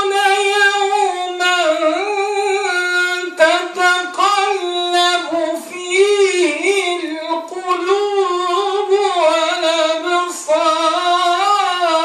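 A man chanting the Qur'an in the Warsh reading: one solo voice through a microphone in long melodic phrases, holding and ornamenting high, wavering notes with brief breaths between phrases.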